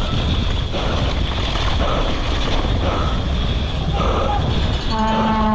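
Downhill mountain bike at race speed: wind rushing over the microphone and tyres rumbling over dirt and then wooden boardwalk planks. Spectators shout along the course, and a long horn blast starts near the end.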